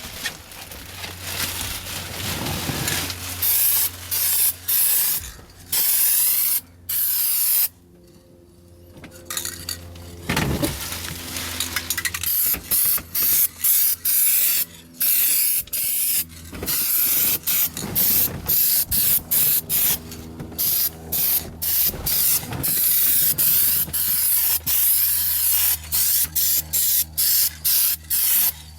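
Aerosol can of hammered-finish spray paint hissing in many short bursts, one pass after another with brief gaps between them. A low steady hum runs underneath.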